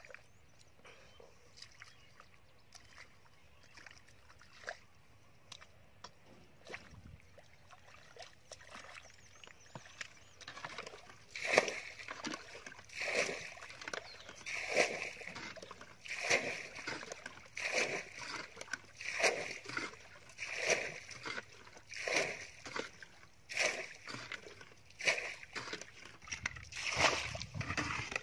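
A plastic bucket scooping muddy water out of a shallow pool and flinging it aside, with a splash about every second and a half. The first ten seconds hold only faint scattered ticks before the bailing starts.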